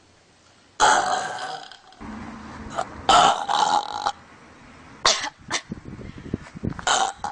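A person belching loudly several times: a long burp about a second in, a longer stretch of burping around three seconds, and short burps near the end.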